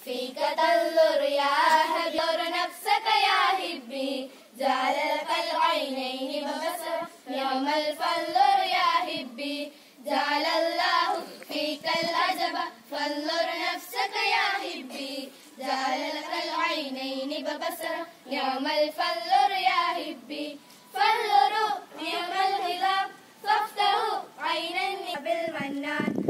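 A group of schoolgirls singing a melody together in unison, unaccompanied, in phrases a few seconds long with short breaths between them.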